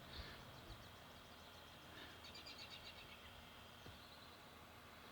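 Faint birds chirping in quick high trills, twice, over quiet outdoor background noise.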